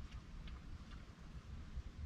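Faint clicks from a raccoon moving about a wooden feeding table: three light ticks about half a second apart early on, over a low steady rumble.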